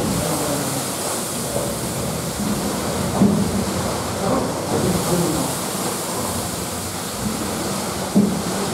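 Steam-powered beam engine and mill machinery running, a steady rushing noise.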